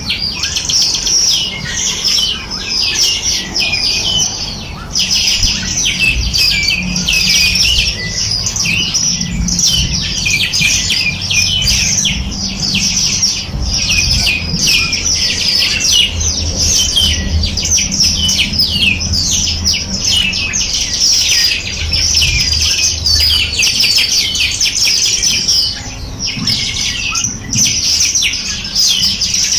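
Many small birds chirping and calling at once, a dense, continuous overlapping chatter of short high chirps with no pauses, over a low steady rumble.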